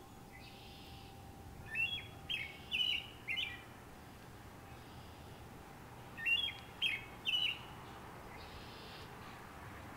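American robin singing: two short phrases of clear whistled notes, about four notes nearly two seconds in and three more about six seconds in.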